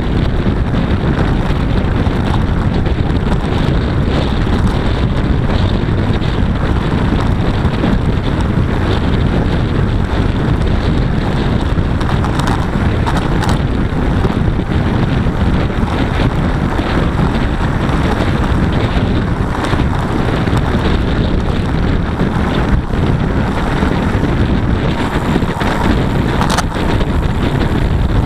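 Steady rush of wind on a bicycle-mounted camera's microphone, with road noise, while riding at about 45 km/h. A few brief knocks come through in the second half.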